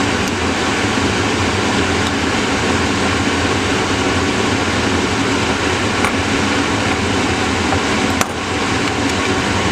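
Steady loud fan-like air noise with a low hum, and a few faint metal clicks of a small screwdriver working at an opened hard drive's head-stack magnets, the sharpest about eight seconds in.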